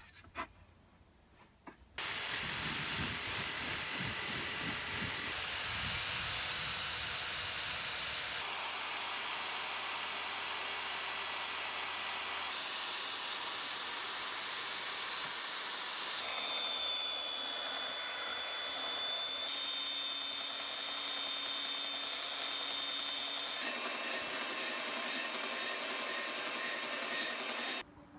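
A spinning abrasive wheel on a power tool grinds rust and scale off a steel axe head: a steady grinding noise that starts about two seconds in, after a couple of light handling clicks, and stops just before the end. The noise changes abruptly several times, with a high whine running through the middle.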